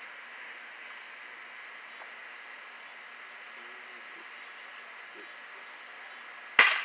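Steady high-pitched insect chorus over a faint hiss, then, near the end, a single sharp crack from a BB gun shot.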